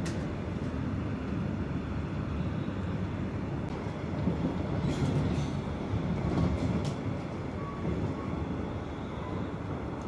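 Regional train running, heard from inside the carriage: a steady low rumble from the wheels on the track, with a few sharp clicks partway through.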